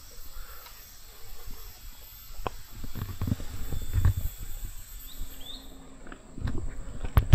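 Outdoor ambience of a jungle park: a steady high-pitched insect drone over a low wind rumble, with a few soft thumps. A bird chirps briefly about five seconds in, and the insect drone stops near the end.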